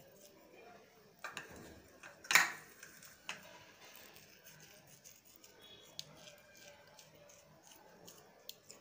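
Faint scattered clicks and light taps of hands working over a ceramic plate while sprinkling chilli flakes and oregano onto a cheese-topped bread slice. The sharpest click comes about two and a half seconds in.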